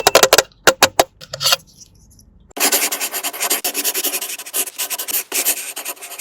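A few sharp clicks of toy handling, then, from about halfway in, fast continuous scratchy rubbing on a toy.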